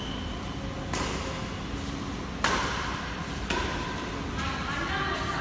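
Badminton racquets striking a shuttlecock in a doubles rally: three sharp hits about a second apart, the middle one the loudest, ringing in a large echoing hall.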